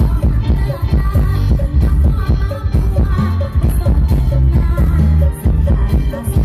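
Live Lao band music: a singer over a heavy bass beat.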